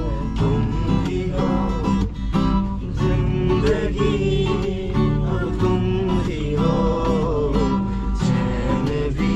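A man singing a melody while strumming an acoustic guitar.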